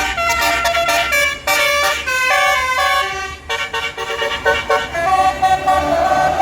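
A bus's basuri telolet horn playing a quick melody of short notes that jump up and down in pitch, over a steady low hum.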